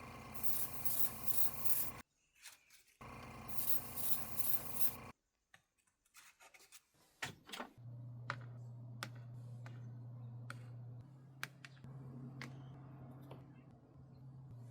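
Rubbing and scraping, like abrading a small part, in two short passages that start and stop abruptly. Then a low steady hum with scattered light clicks.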